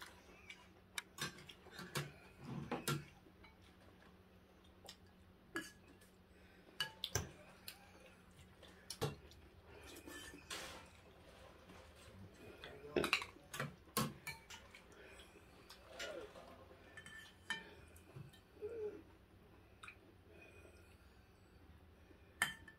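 Spoons and chopsticks clinking and tapping against ceramic bowls and a clay soup pot during a meal, in scattered irregular taps, with a cluster of louder clinks about halfway through.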